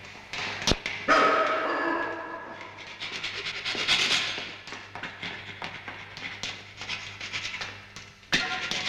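A dog barking and whimpering in irregular calls, with sharp onsets about a second in and again near the end, over a steady low hum.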